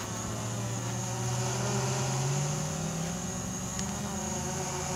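Quadcopter drone's propellers humming steadily as it hovers, the pitch creeping up slightly a second or two in before settling.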